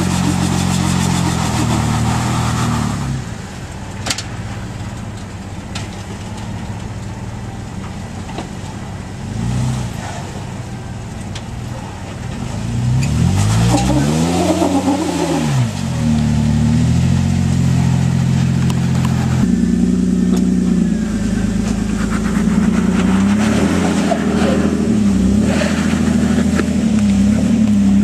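Off-road Jeep engine working hard as the Jeep climbs a steep rock ledge, revving up and down with the throttle. About halfway through the engine speed rises sharply and falls again, as the tyres spin for grip on the rock.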